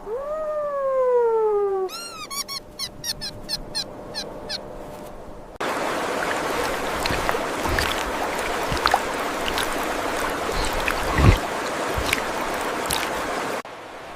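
An animal calling: one long cry falling in pitch, then a quick run of short chirps, followed by several seconds of steady hiss with scattered clicks.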